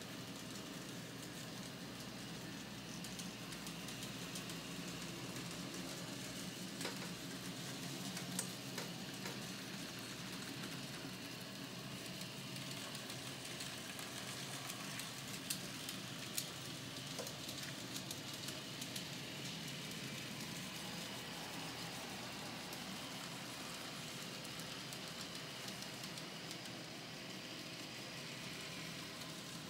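N-scale model trains running on a modular layout: a faint steady whir of the small locomotive motors and wheels on the rails, with a few scattered clicks.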